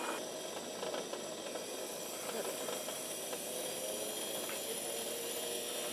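Turbine engine of a large RC Boeing Vertol CH-46 scale model helicopter running on the ground with its tandem rotors turning: a steady hiss with a thin, high whine.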